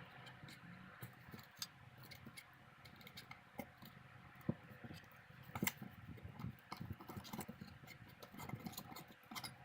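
Irregular small clicks and knocks of hard parts being handled and fitted together as a handheld camera stabilizer is assembled, with two sharper clicks about four and a half and five and a half seconds in, over a faint steady hum.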